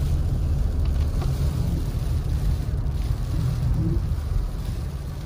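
Car cabin noise while driving on a wet road: a steady low rumble of tyres and engine.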